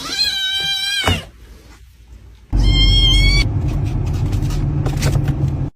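Kitten meowing twice: a high cry in the first second that drops at its end, then a second, higher meow about two and a half seconds in. A loud low rumble starts with the second meow and runs on until the sound cuts off suddenly near the end.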